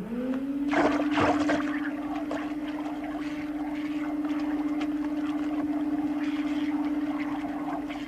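Vacuum cleaning machine starting up: its motor whine rises over the first half second, then holds at one steady pitch. Under it, liquid gushes and gurgles as it sprays foam, with a few knocks about a second in.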